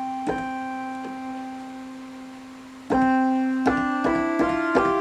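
Sequential OB-6 synthesizer notes played with oscillator sync on: one held note slowly fading, then about three seconds in a new note followed by a quick run of notes stepping upward in pitch.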